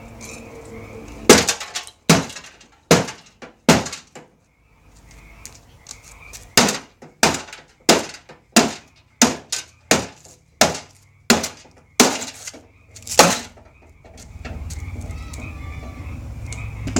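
A hammer smashing a microwave: about sixteen sharp blows with breaking glass, in two runs with a short pause in between.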